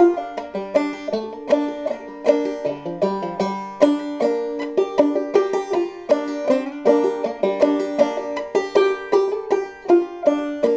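Five-string banjo played clawhammer style in G minor tuning (gDGBbD): a quick, even run of plucked notes, dipping into lower notes about three seconds in.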